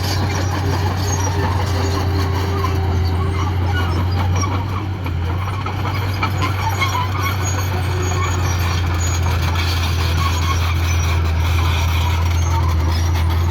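Heavy machinery running steadily: a constant low engine drone with a rough, crackling noise over it.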